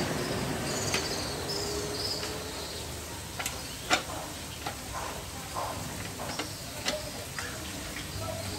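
Scattered metal clicks and knocks as a steel bar is set and clamped in the vise of an angle grinder cut-off stand, the loudest knock about four seconds in. Birds chirp in the background.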